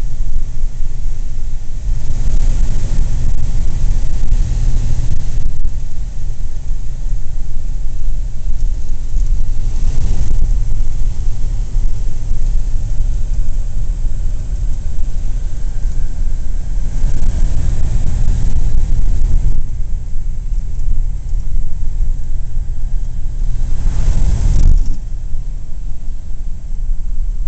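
Interior sound of a 1941 Plymouth under way: its flathead straight-six running with tyre and wind noise, heard from inside the cabin. Four times the rushing noise swells louder for a second or a few.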